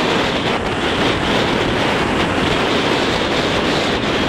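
Surf breaking and washing up a beach, mixed with wind buffeting the microphone: a steady rush of noise with a low rumble.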